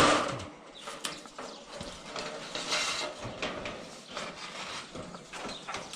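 Roofing shingles being handled and bent: a sharp knock at the start, then scattered clicks and rustling.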